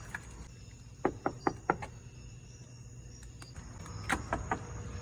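Knocking on a bathroom door: four quick raps about a second in, then three more near the end.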